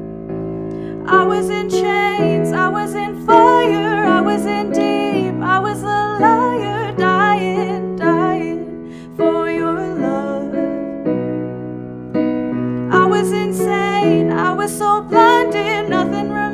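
A woman singing solo over sustained chords that change about once a second, performed live as a stripped-down acoustic cover.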